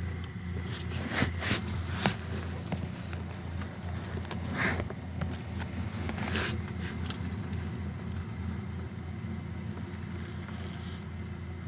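A vehicle engine idling steadily, with a few sharp clicks and knocks about one to two seconds in and two short scraping sounds later on.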